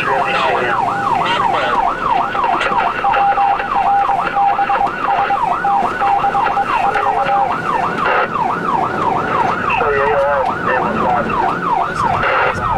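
Fire apparatus electronic siren in fast yelp mode, sweeping up and down about three times a second. A steady tone sounds under it for the first half and stops a little past the middle.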